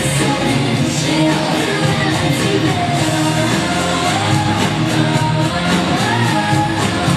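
Recorded song with a singing voice over a full band backing, played loud for a lip-sync dance routine.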